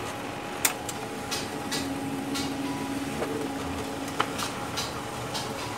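HP LaserJet 1320 laser printer running a page through: a steady mechanical hum with a steadier tone for about a second and a half near the middle, and several sharp clicks from the paper feed. Its repaired pickup roller, previously stuck, is now picking paper normally.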